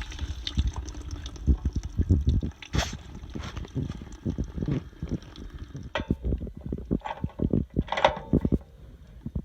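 Irregular knocks, clanks and low thumps of an RV water heater's anode rod being worked loose from the tank.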